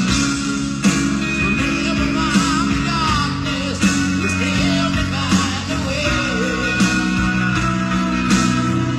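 Live rock band playing a slow power ballad: piano, electric guitar and drums, with a snare hit about every second and a half. A bending melodic line wavers over the top.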